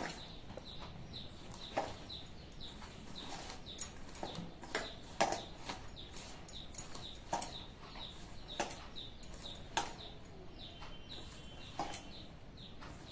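Hands and glass bangles working a dry semolina and flour dough in a steel plate, giving sharp irregular clicks and clinks, with birds chirping in the background.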